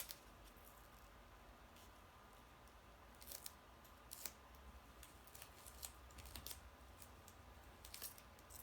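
Near silence, with a few faint scratchy clicks about three, four, six and eight seconds in from fingers working paper card pieces and the peeled backing of foam adhesive tape.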